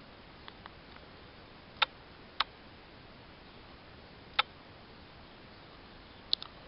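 Sharp, short plastic clicks from an iPod Touch and its TomTom car kit cradle being handled: single clicks about two seconds in, half a second later and at about four and a half seconds, then a quick double click near the end.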